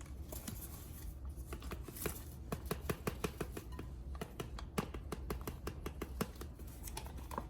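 Small irregular clicks and taps of a spoon against a container as a spice powder is measured out and added.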